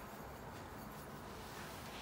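Quiet, steady room tone with no distinct sound.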